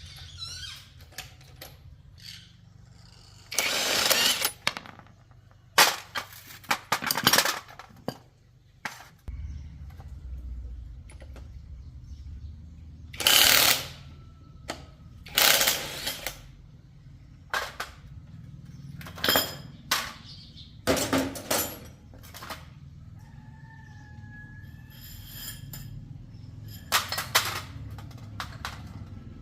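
Shock-absorber repair work with hand and power tools: about ten short, irregular bursts of tool noise over a steady low hum, the longest lasting about a second.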